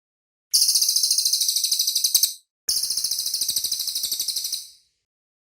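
Cililin bird singing two rapid, dense trills of high, sharp notes, about ten a second. Each trill lasts about two seconds, with a short break between them.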